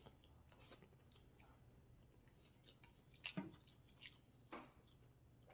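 Faint chewing of a mouthful of stir-fried instant noodles, with a few soft mouth clicks.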